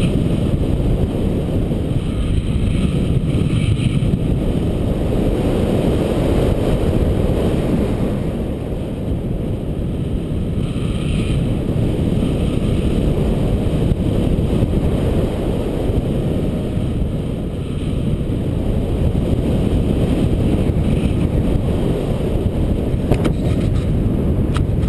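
Airflow buffeting an action camera's microphone in paraglider flight: a steady low rushing wind noise that eases slightly twice.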